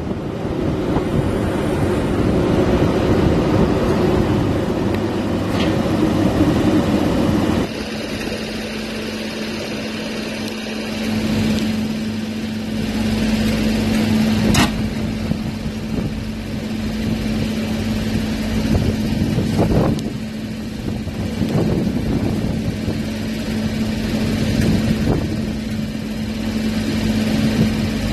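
Class 90 electric locomotive standing with its on-board equipment running: a loud rushing noise cuts off abruptly about eight seconds in, leaving a steady low hum. A single sharp clunk comes a few seconds after the change.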